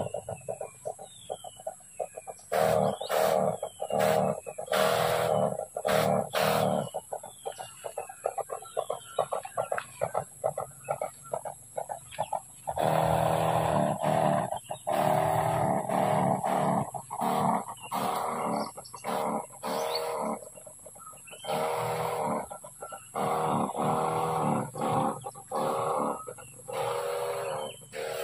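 Chickens clucking in rapid runs, broken by longer drawn-out calls, over a steady high-pitched whine, with short falling whistles in the first few seconds.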